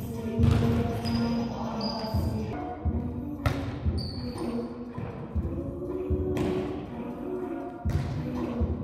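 Volleyball being struck by players' hands during a rally in a gym: several sharp hits a second or more apart, over background music.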